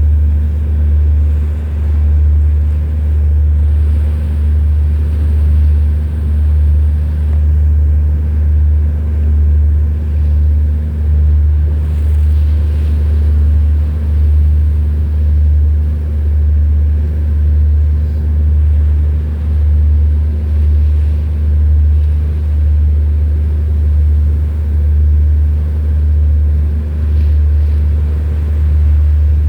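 A vessel's diesel engine running steadily, a deep low drone with a few fixed hum tones above it, swelling and easing in a regular throb about every second and a quarter.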